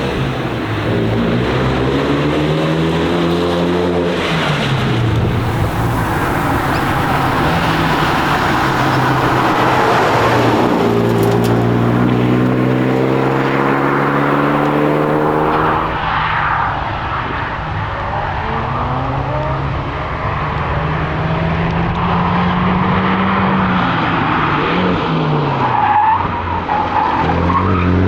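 Renault Megane RS 250's turbocharged two-litre four-cylinder engine driven hard: the revs climb steadily in each gear, then drop at each shift or braking point before climbing again, about four times, over steady road noise.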